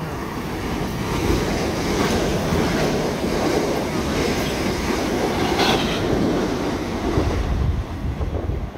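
Class 455 electric multiple unit running non-stop through the station: the rumble and rush of its wheels on the rails builds as it approaches, stays loud with a few sharper clacks as the carriages pass, and eases near the end as it pulls away.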